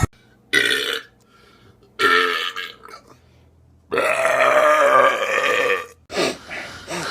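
A person belching on cue: a short burp about half a second in, another about two seconds in, then a long drawn-out belch of nearly two seconds starting about four seconds in.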